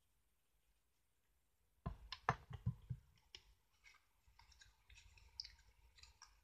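Cardstock layers and craft supplies handled on a craft mat. A quick cluster of sharp clicks and taps comes about two seconds in, then lighter tapping and paper rustling as a layer is placed and pressed down.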